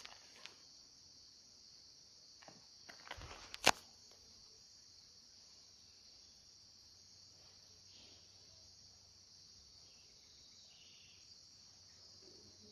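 Steady high-pitched chirring of an insect chorus, with a few faint rustles and one sharp click about three and a half seconds in.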